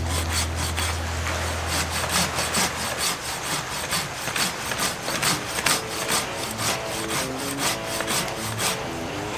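Silky GomBoy 270 mm coarse-tooth folding pull saw cutting through a thick log of about 20 cm across: a steady rhythm of rasping saw strokes, about three a second, that stops shortly before the end.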